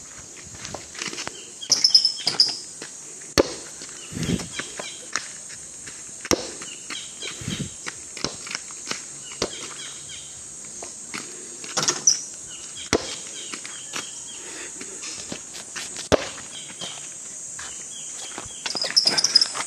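Scattered knocks and dull thuds of a basketball being handled and bounced on bare dirt, over a steady high insect drone. A few short high chirps come about 2 s in, about 12 s in and near the end.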